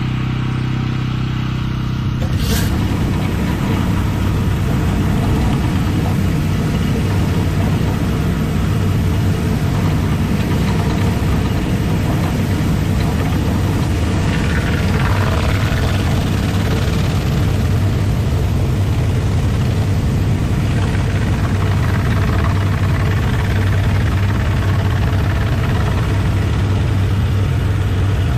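Pressure washer running steadily, a motor hum under spray noise. A sharp click comes about two and a half seconds in, and the sound shifts after it.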